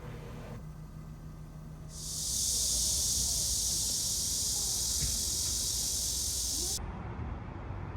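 A steady, high-pitched hiss that swells in about two seconds in, holds for nearly five seconds and cuts off suddenly.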